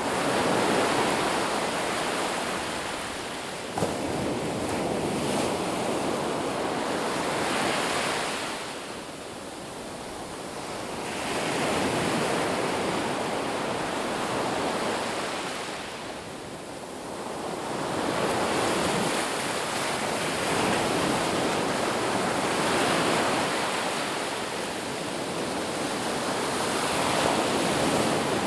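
Ocean surf washing onto a beach, the rush of the waves swelling and fading in slow cycles several seconds apart.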